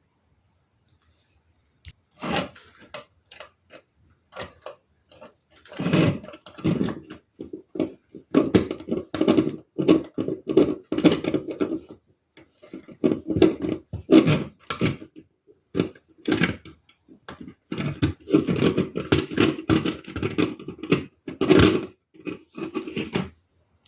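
Hard plastic LEGO Technic pieces clattering and clicking as hands rummage through loose parts and snap them together, in irregular bursts with short pauses, starting about two seconds in.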